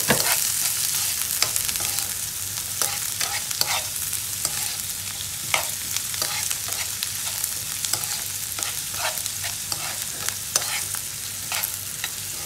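Sliced onions, ginger and garlic sizzling in coconut oil in a nonstick frying pan, while a metal spoon stirs and scrapes across the pan in short, irregular strokes.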